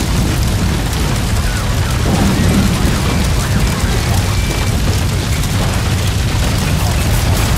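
Designed sound effect of a building on fire: a steady, deep roaring rumble with crackling, a little louder from about two seconds in.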